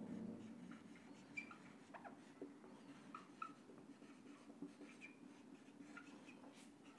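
Faint squeaks and light ticks of a marker pen writing on a whiteboard, in short scattered strokes.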